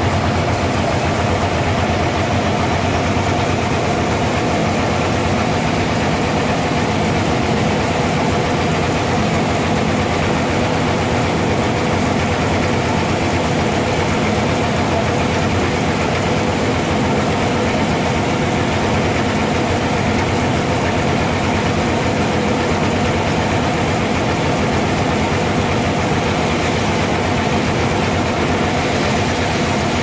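Bandsaw sawmill machinery running steadily with no cut under way: an even engine-like hum over a low rumble.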